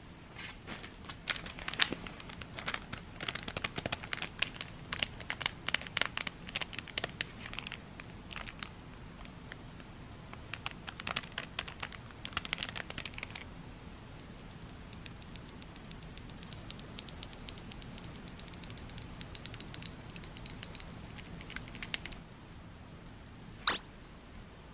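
Crinkling of a thin clear plastic packaging bag being handled, in several runs of fine crackling clicks with short pauses between them, and one sharper click near the end.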